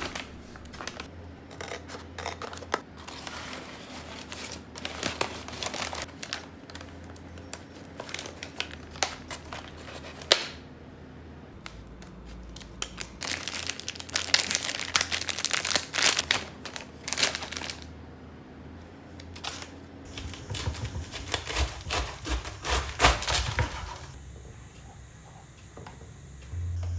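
Plastic packaging crinkling and rustling as it is handled, with irregular small clicks and knocks; busier spells come in several bursts.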